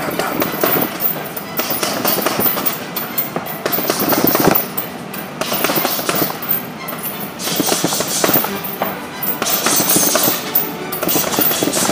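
Boxing-gloved punches landing on a heavy punching bag in quick, irregular combinations, over background music.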